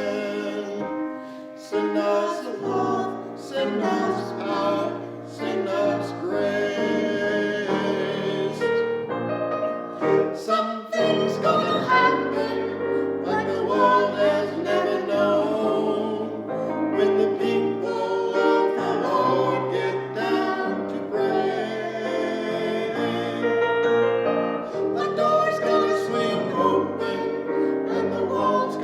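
Music: singing with piano accompaniment.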